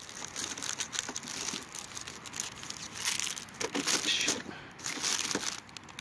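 Clear plastic sleeves of firework ball shells crinkling and rustling as they are handled against their cardboard box. The sleeves crackle with many small clicks and get louder in a few bursts through the middle and toward the end.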